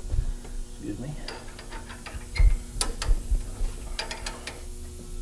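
Metal clunks and clicks of a cylinder head being shifted and set onto the steel fixture rails of a valve seat and guide machine. A few heavier knocks come in the middle and a quick run of clicks near the end, over a steady low hum.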